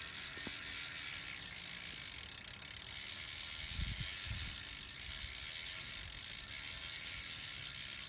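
Road bike drivetrain turned by hand: the chain runs steadily over the rear cassette and derailleur pulleys, with a couple of soft knocks about four seconds in. A bent chain link catches in the derailleur pulley each time it comes around, making the pulley jump.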